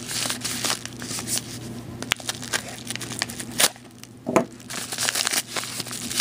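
Padded kraft bubble mailer being handled, its paper crinkling and rustling in a rapid run of small crackles. A sharp click comes about two seconds in and a louder snap a little past halfway.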